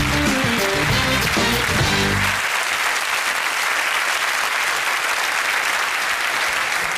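A short TV music sting over a studio audience's applause. The music stops about two and a half seconds in, and the applause carries on alone.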